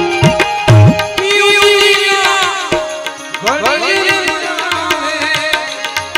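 Tabla pair playing, the bass drum's strokes swooping in pitch in the first second. After that a melody line of quick bending notes runs over a held harmonium-like note, while small hand cymbals (manjira) keep ticking in time.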